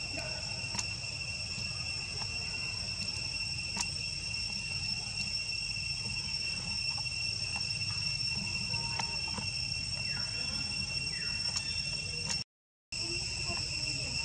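Steady, high-pitched drone of insects: one unbroken tone with a higher overtone above it, over a low rumble, with a few faint ticks. The sound cuts out completely for a split second near the end.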